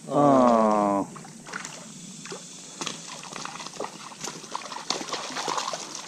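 A loud drawn-out vocal call in the first second, then splashing and sloshing as a dog wades into shallow creek water.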